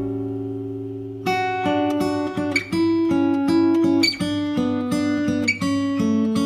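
Background music played on a plucked guitar: a chord rings out and fades, then picked notes resume about a second in.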